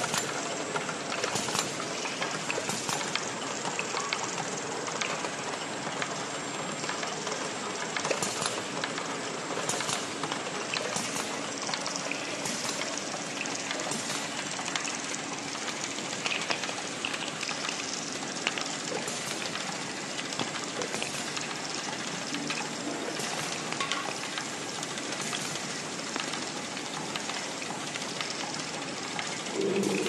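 Automatic small-bottle filling, plugging, capping and labeling line running: a steady mechanical clatter with frequent sharp clicks of bottles and moving parts.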